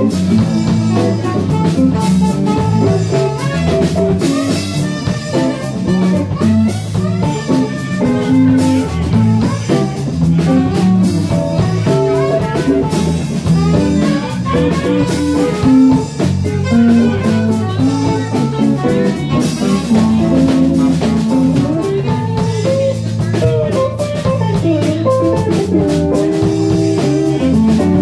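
Live band jamming: electric guitar, Fender bass guitar and drum kit playing together.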